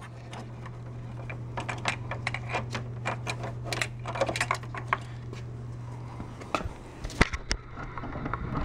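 Rapid light clicking and rattling of a Powerlet adapter cord and its plug being fed down between plastic and metal parts under a motorcycle seat, with a few sharper clicks about seven seconds in. A steady low hum lies under it and stops after about six and a half seconds.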